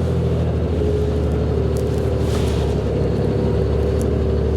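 Ford 750 dump truck engine running steadily while the loaded truck is maneuvered, with a steady whine above the engine note.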